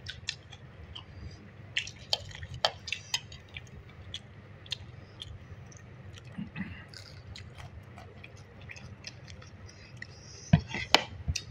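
Close-up eating sounds: soft chewing with scattered small mouth and utensil clicks, and a short burst of louder clicks near the end.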